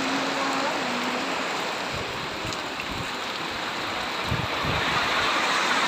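Heavy tropical downpour: a steady hiss of rain, with a few short low thuds around the middle.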